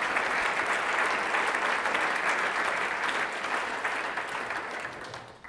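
Audience applauding steadily, with dense clapping that tails off near the end.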